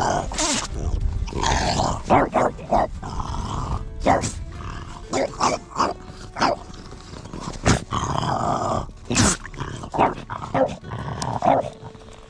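French Bulldog snorting and grunting, a string of short, sharp snorts and sniffs with gaps between them.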